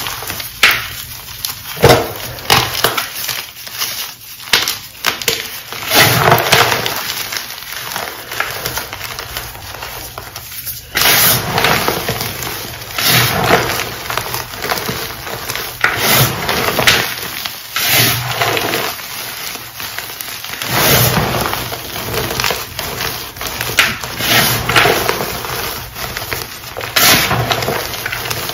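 Hands squeezing, scooping and crumbling packed powdered gym chalk mixed with cornstarch, making an irregular crunching, crackling sound as the clumps compress and break apart.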